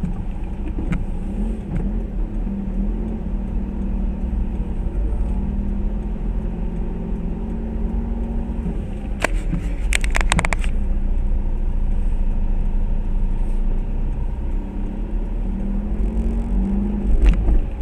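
Car engine and road noise on a wet road, heard from inside the cabin through a dashcam: a steady low rumble with a running engine tone, broken by a quick cluster of sharp clicks a little past halfway and another click near the end.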